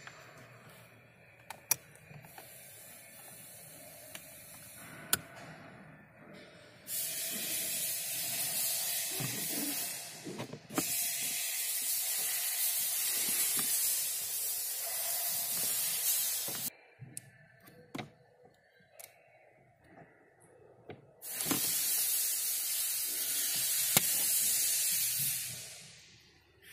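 Three long stretches of loud, even hiss that start and stop abruptly. A few sharp clicks fall in the quiet gaps between them.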